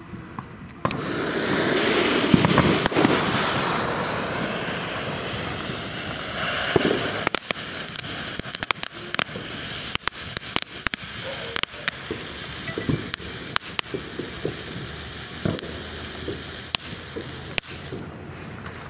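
Consumer fountain firework lit and spraying: it starts suddenly about a second in with a steady loud hiss, then turns to a run of sharp crackling pops that thin out near the end.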